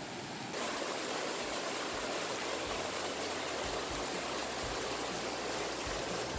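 Mountain stream rushing and splashing over boulders in a steady, full rush that grows louder about half a second in.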